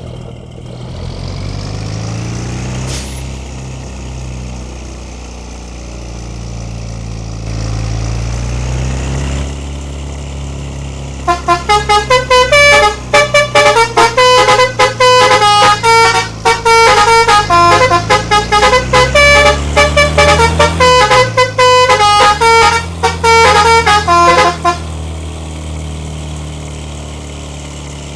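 A bus engine runs with a low rumble, its pitch rising twice. About eleven seconds in, a telolet multi-tone musical horn plays a fast melody of short stepped notes for about thirteen seconds, loud over the engine. The engine then continues alone.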